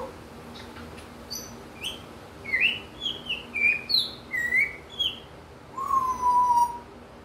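African grey parrot imitating wild birds: a quick run of short chirps and squeaky whistles, then one long whistle falling slightly in pitch near the end.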